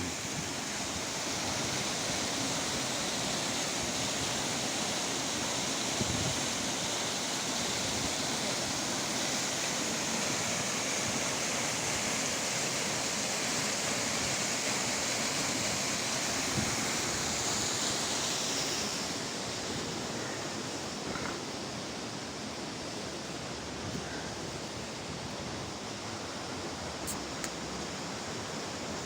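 Waterfall: a steady rush of falling water, turning a little quieter and duller about two-thirds of the way through.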